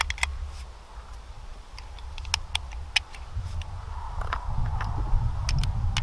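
Strong wind buffeting the microphone as a fluctuating low rumble, with a scattered series of light, sharp mechanical clicks.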